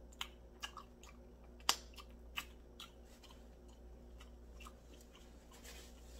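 Close-miked mouth sounds of someone eating chicken: quiet chewing with a few sharp wet smacks in the first three seconds, the loudest a little under two seconds in.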